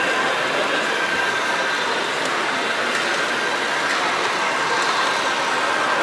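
Steady noise of a trade-fair hall around an H0 model railway layout, with model trains running on it. A faint steady whine fades out about a second in.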